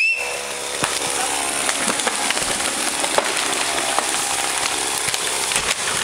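Tree trunk cracking and snapping at the hinge as a felled tree begins to go over, with scattered sharp snaps over a rustling hiss. A chainsaw idles faintly underneath.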